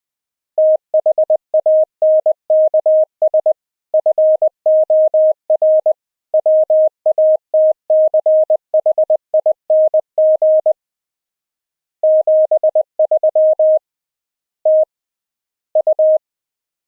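Morse code (CW) sent as a single audio tone, keyed on and off quickly in dots and dashes. There is a pause of about a second partway through, and near the end only a few scattered elements.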